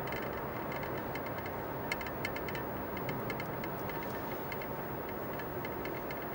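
Steady road and engine noise inside a moving car's cabin, with scattered clusters of light ticks and rattles now and then.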